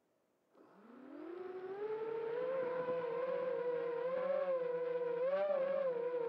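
FPV quadcopter's motors spinning up from rest for lift-off. About half a second in, a whine starts and rises steeply in pitch for about a second and a half, then holds steady with small wavers as the throttle is worked.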